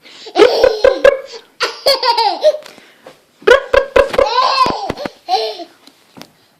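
A ten-month-old baby laughing in four bursts of giggles, the longest about a second and a half.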